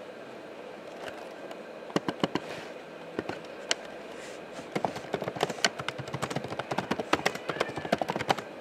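Typing on a laptop keyboard: a few scattered key clicks at first, then rapid continuous typing from about halfway through.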